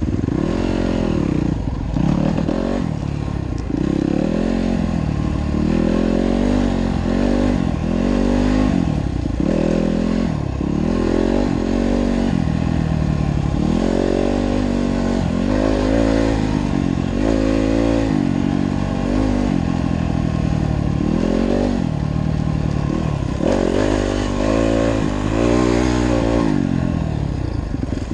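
Yamaha dirt bike engine being ridden, heard from on board; its pitch rises and falls again and again, about every second or two, as the rider opens the throttle and eases off.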